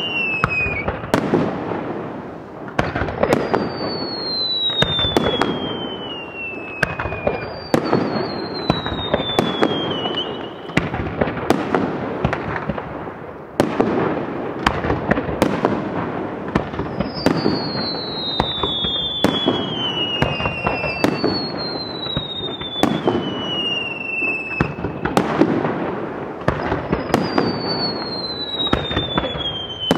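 Aerial fireworks display: a continuous run of shell bursts and crackling stars. High whistles that fall in pitch, each lasting a few seconds, come again and again over the bursts.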